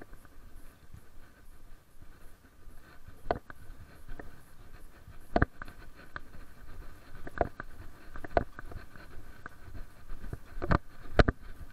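Handling noise from a chest-worn camera during a walk: faint rustling with about six sharp knocks at irregular intervals, the loudest near the end.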